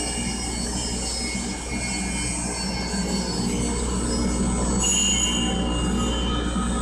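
RS-100L vacuum emulsifying mixer running: a steady motor hum with a high thin whine, which grows briefly louder about five seconds in.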